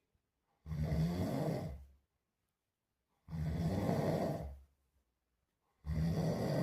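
A person snoring in a steady rhythm: three snores, each a little over a second long, coming about every two and a half seconds.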